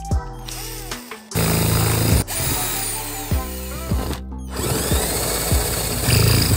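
Power drill with a twist bit boring holes through a thin perforated metal ring, starting about a second in and stopping briefly partway before running again. Background music with a steady beat plays under it.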